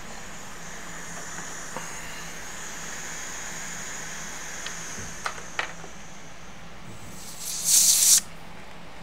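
A short blast of compressed air, under a second long, near the end, blowing cleaning solvent dry off a phone logic board. Before it a faint steady hiss and two small clicks.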